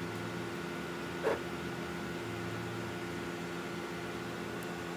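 A sewing machine needle, worked slowly by the hand wheel without thread, punching through paper: one short, sharp pop about a second in, over a steady hum.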